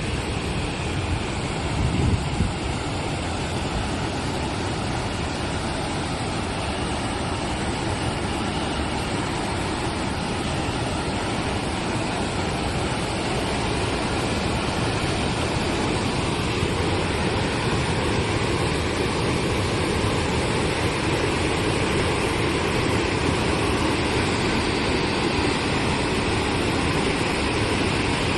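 Valley stream water rushing, a steady even rush.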